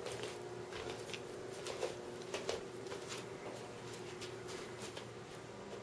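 Loose sheets of paper rustling under cats' paws as they step across them, in scattered soft crackles, most of them in the first three seconds. A faint steady hum runs underneath.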